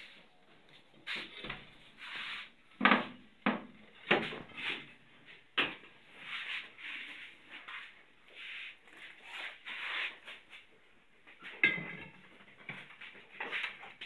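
Irregular knocks and short scrapes of wood and a long bar as old wooden framing is pried and pulled loose, with a few sharp knocks standing out.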